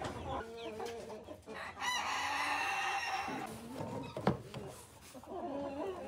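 Chickens clucking, with a rooster crowing once about two seconds in, a long call of more than a second that is the loudest sound here.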